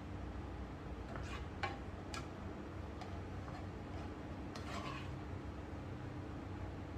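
Slotted spatula clinking and scraping in a skillet while stir-fried macaroni, beef and broccoli are scooped out, a few light clicks and scrapes spread over the first five seconds. A low steady hum runs underneath.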